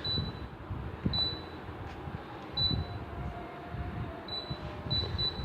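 Several short, high single-tone beeps at irregular intervals from a Haier split air conditioner's indoor unit acknowledging remote-control button presses, over a low background rumble.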